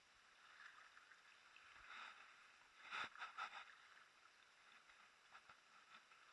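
Faint water sounds of a kayak being paddled on calm sea: the paddle dipping and water lapping at the hull, with a short run of sharper splashes about three seconds in.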